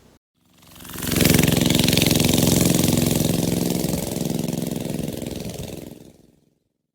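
An engine or motor running steadily, faded in about half a second in and faded out again near the end.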